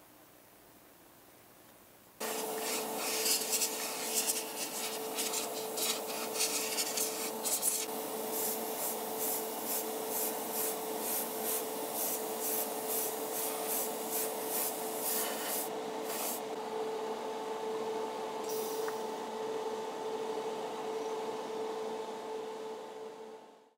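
Hobby spray booth extractor fan switched on abruptly about two seconds in, running with a steady hum, with an airbrush hissing in irregular bursts over the first half while the model car body is sprayed; the fan winds down just before the end.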